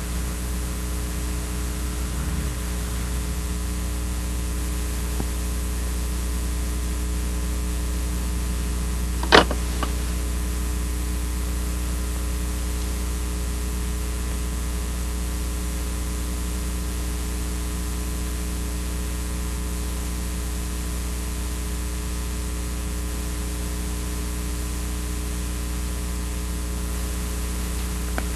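Steady mains hum with an even hiss, the noise floor of an old video soundtrack, broken once about nine seconds in by a single sharp click.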